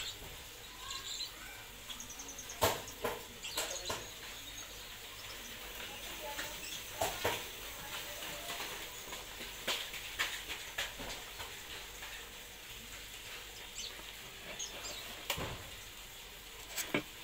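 A caged lovebird giving scattered short chirps and clicks, a dozen or so brief sounds spread out over a faint steady hiss.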